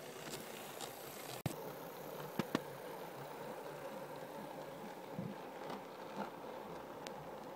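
Model AEC railcar running past on a model railway track: a steady faint whirr of its motor and wheels, with a few sharp clicks, one about a second and a half in and two close together near two and a half seconds.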